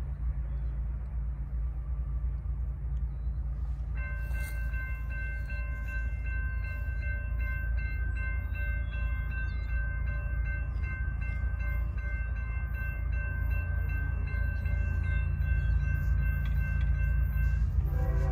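Railroad grade-crossing warning bell ringing a steady run of metallic strokes while the crossing gates rise; it starts about four seconds in and stops just before the end. A constant low rumble sits underneath.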